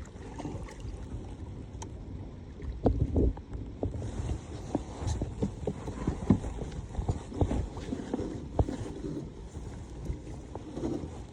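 Irregular knocks and bumps on a kayak, with low rumbling water and handling noise, while the anchor is being dropped and set.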